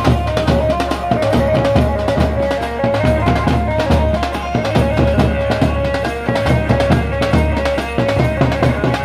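Band baja drumming: a large bass drum thudding under fast, dense side-drum and snare beats in a steady dance rhythm, with a melody of short held notes playing over the drums.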